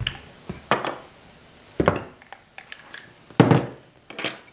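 A rolling pin pressed and rolled over fondant on a plastic texture mat, with several dull knocks and thumps as it works across the sheet; the loudest comes about three and a half seconds in.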